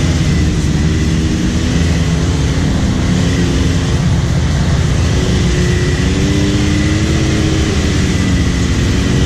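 Can-Am Maverick X3 Turbo side-by-side engine running steadily under load, its revs wavering slightly as it drives through a flooded mud trail, heard from inside the cab. Muddy water churns around the tyres.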